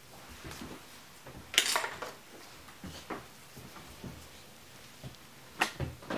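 Light clinks and clicks of small hand tools being handled as an eyebrow pencil is put aside and a brow-measuring caliper is picked up and set against the brow: a sharp clatter about one and a half seconds in, a few lighter taps, then a quick cluster of clicks near the end.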